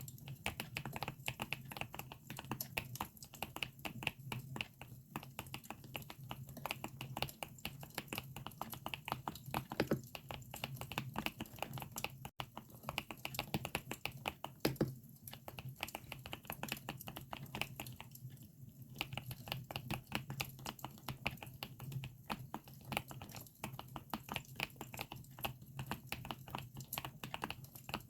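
Continuous typing on a GMK67 mechanical keyboard with Akko Lavender switches: fast, irregular keystroke clacks with short pauses about halfway through, over the sound of a crackling campfire.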